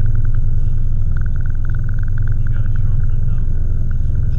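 Boat engine running with a steady, loud low drone, and a faint higher pulsing sound coming and going over it.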